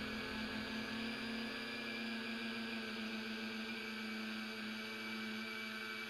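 Rhino tricopter's electric motors and propellers whirring steadily in flight, heard from on board as a constant hum with a few steady higher whines over a hiss.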